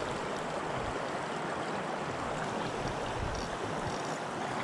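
Steady rushing of a shallow stream running over stones.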